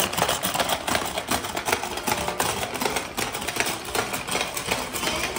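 Fast, continuous plastic clattering of a hungry frog marble game: several players hammering the frog levers at once, the plastic frogs snapping and marbles rattling on the board.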